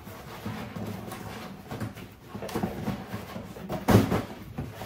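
Cardboard rustling and scraping as an inner carton is worked out of a large cardboard box, with one louder knock about four seconds in.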